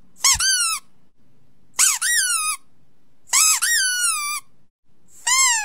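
Four loud, high-pitched squeaks played for a dog to react to, each under a second long, rising and then falling in pitch, about a second and a half apart.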